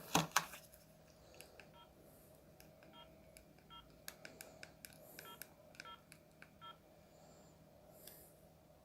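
Sony Ericsson K200a mobile phone keypad being pressed: a series of sharp button clicks, several of them with a short electronic key beep, at irregular intervals. It begins with two louder clicks, over a faint steady hum.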